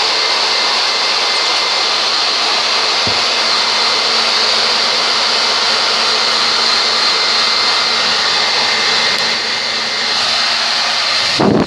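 Electric blow dryer running steadily on a Persian cat's coat: a constant airy rush with a thin high whine. A short louder rush of air comes just before the end.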